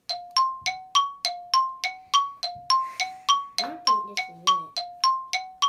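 Two-note bell-like chime, a lower and a higher note struck in turn about three times a second, running evenly without slowing.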